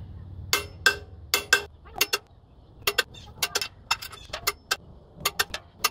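Sharp metallic clicks from a torque wrench's ratchet, mostly in quick pairs about every half second, as it is worked back and forth tightening flywheel bolts to 105–110 foot-pounds.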